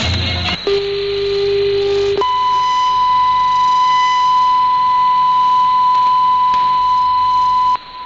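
Test-card tones received over shortwave radio: a steady lower tone held for about a second and a half, then a higher steady tone for about five and a half seconds that cuts off near the end, over the receiver's faint hiss.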